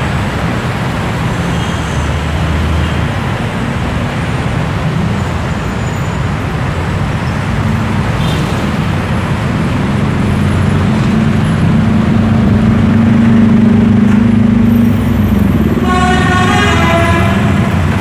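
Steady traffic noise from a busy multi-lane highway, with a heavy vehicle's engine drone growing louder about ten seconds in as it passes. A horn with several changing notes sounds near the end.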